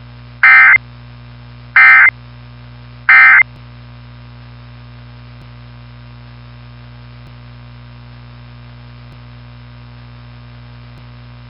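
Three short bursts of EAS digital data tones (the SAME end-of-message code) about 1.3 seconds apart, closing the test alert, over a steady mains hum.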